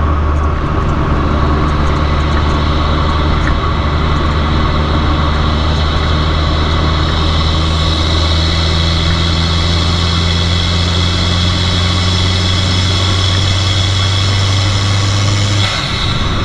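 Fiat 500 Abarth's turbocharged 1.4-litre four-cylinder running through an MPx cat-back exhaust at a steady engine speed, a constant low drone. Near the end the level briefly dips and the tone shifts as the engine speed changes.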